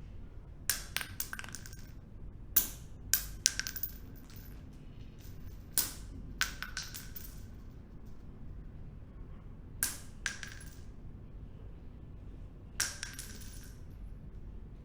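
Metal bullets dropped one at a time onto a hard surface. Each lands with a sharp metallic clink and a short ringing note, then bounces a few times. There are five drops, a few seconds apart.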